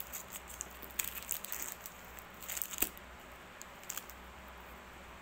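A new handbag being handled: crinkling of the plastic wrap on its handles and light clinks, in short clusters with the loudest snap near three seconds in.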